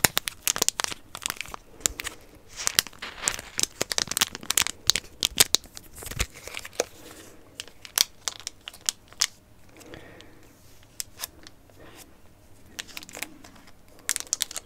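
Pokémon booster pack wrapper crinkled and scrunched close to the microphone: dense crackling, busiest in the first six seconds, then sparser, with a last flurry near the end.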